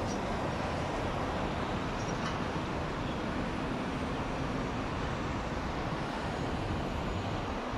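Steady rushing noise inside a moving cable car cabin, mixed with road traffic from the highway below.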